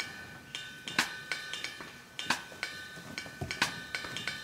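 Background music with a drum-kit beat: a sharp hit about every second and a quarter, lighter percussion between, over steady held notes.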